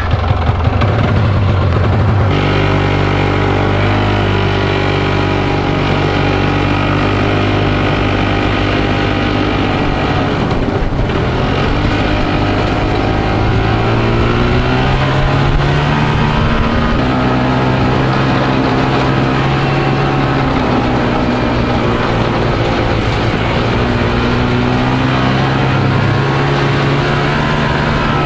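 Snowmobile engine under way: it picks up revs about two seconds in as the machine pulls off, then runs steadily, its pitch rising and falling with the throttle.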